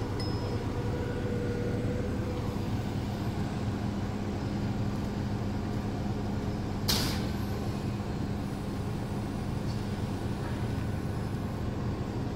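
Forklift engine running steadily as it carries steel beams up to a flatbed trailer. About seven seconds in there is one short, sharp hiss of air.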